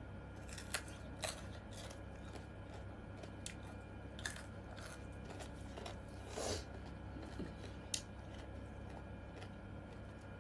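A person eating close to the microphone: soft chewing with scattered small crunches and clicks, one longer crunch about two thirds of the way through.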